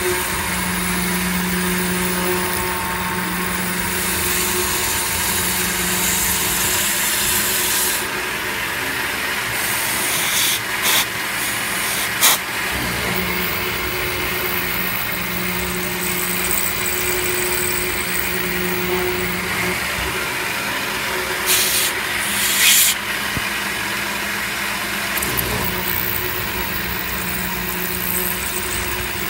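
End mill on a CNC milling machine cutting an aluminium block under flood coolant: a steady cutting tone over a hiss, with a few short sharp bursts about 11 and 12 seconds in and again around 22 seconds.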